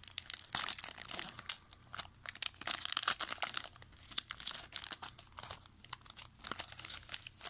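Plastic wrapper of a trading-card pack crinkling and tearing as it is ripped open by hand, with a quick, uneven run of crackles.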